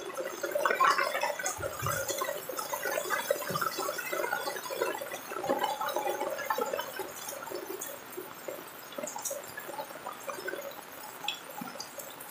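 Heavy rain falling, heard as a dense patter of many close drips and splashes of water on wet ground, a little louder in the first few seconds and easing somewhat after that.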